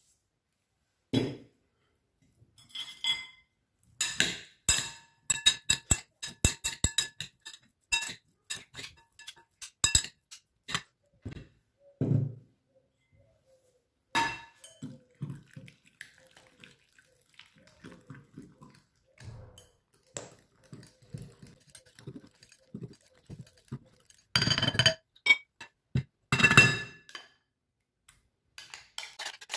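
Spoons stirring food in glass bowls, with many quick clinks of the spoon against the glass and a couple of dull knocks. Near the end, two longer scrapes as the spoon scoops the creamy sauce out of its bowl.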